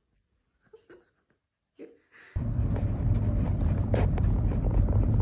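A few faint small clicks, then, a little over two seconds in, a sudden loud, steady low rumble of a running vehicle, with a single sharp knock about a second and a half later.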